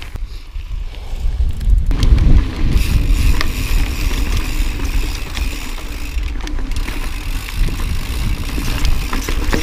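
2013 Tallboy LTc mountain bike rolling over a rocky dirt trail: tyre and frame noise with scattered clicks and knocks, louder from about two seconds in. Wind rumbles on the microphone.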